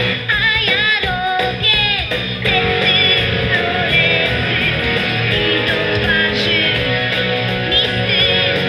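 A girl singing into a microphone over a recorded backing track with guitar, played through large PA loudspeakers.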